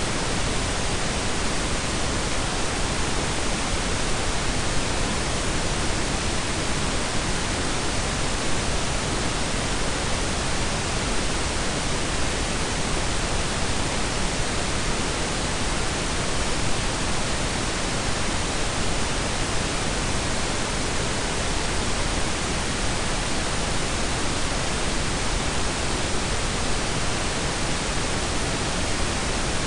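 Blended pink and brown noise, a steady, even hiss with a deep rumbling undertone and no changes.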